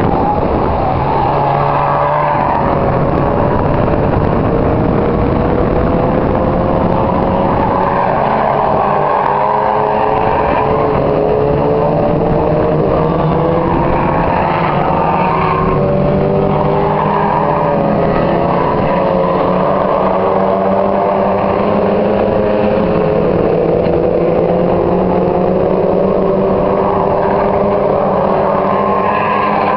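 Mazda MX-5 race cars running on the circuit, several four-cylinder engines at once, their pitch rising slowly as they accelerate and overlapping as the cars pass.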